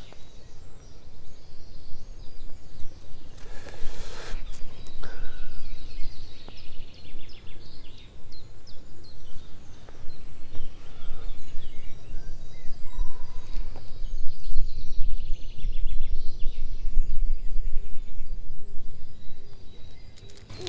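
Outdoor ambience: a low, gusty rumble of wind on the microphone, with small birds chirping on and off. A couple of brief scuffs come about four seconds in.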